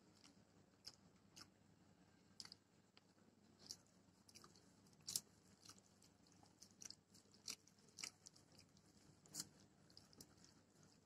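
Faint eating sounds: chewing as rice, dal and fried potato are eaten by hand, with irregular sharp little clicks and smacks scattered through, the loudest about five seconds in, while fingers mix the rice on a steel plate.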